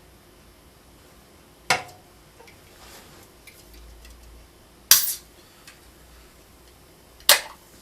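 Three short, sharp knocks spaced a few seconds apart, with only faint room noise between them.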